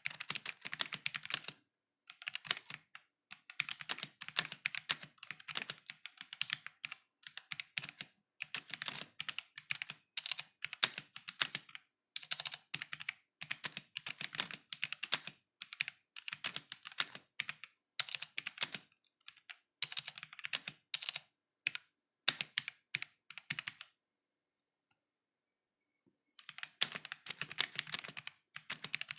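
Mechanical keyboard with stock, unmodified Gateron Black linear switches being typed on in fast runs of keystrokes with short pauses between them. The typing stops for about two seconds near the end, then starts again.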